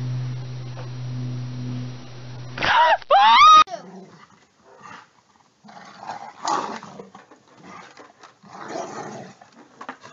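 A steady low hum, then about a second of loud, rising animal cries near the three-second mark. After that, a dog holding a long stick in its mouth at a gap in a wooden picket fence makes short rough noises, with scattered scrapes and knocks.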